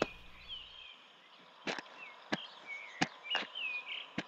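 Footsteps on stony ground, about five sharp steps roughly two-thirds of a second apart, with small birds chirping. Background music ends about a second in.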